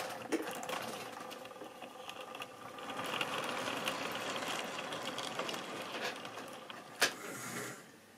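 Tri-ang or Lima OO-gauge model train of tank wagons running close past on sectional track: a steady rattling whirr with many small clicks as the wheels cross the rail joints. There is one sharp click about seven seconds in, and the running sound drops away just before the end.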